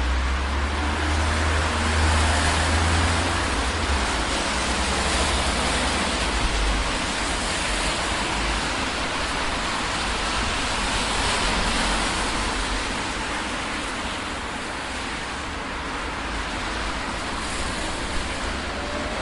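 City street ambience: a steady wash of traffic noise, with a heavy low rumble of a vehicle passing close in the first few seconds.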